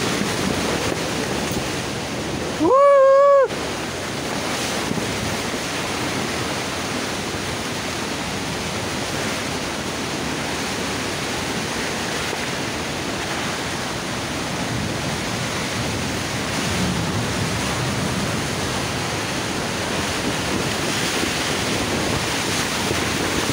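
Storm wind and heavy rain lashing a tent, a steady rushing noise with wind buffeting the microphone. About three seconds in, a loud, brief high-pitched tone with a slight wobble cuts through.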